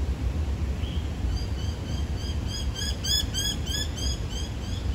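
A bird calling a quick series of short, high chirps, about three or four a second, growing louder midway and fading near the end, over a steady low rumble.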